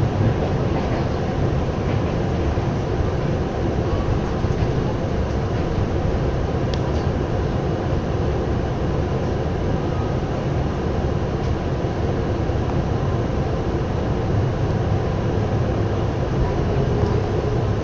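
Steady running noise of a Tokyu Oimachi Line express train heard from inside the car: wheels on rails and the car's rumble at speed.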